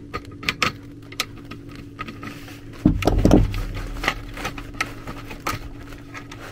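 Light, irregular clicks and handling noise from hands working wires and tools at the zone board, over a faint steady hum, with a louder low thump about three seconds in.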